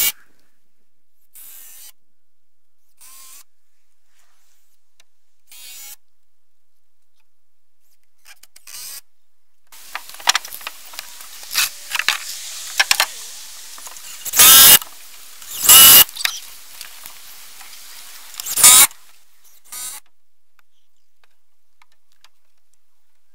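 Cordless drill driving screws into wood framing in short bursts, the three loudest coming about two-thirds of the way in, among scattered clicks and knocks of handling the lumber, with quiet stretches between.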